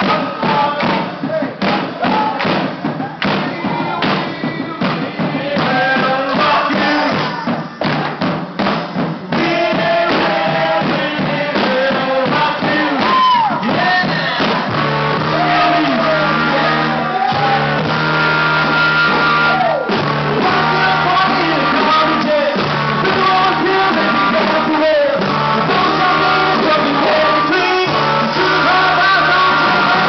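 Upbeat dance music with singing, and whooping shouts from a dancing crowd. For the first nine seconds or so it is mostly a driving beat of percussion and hand claps. Then the full music comes in louder and steadier.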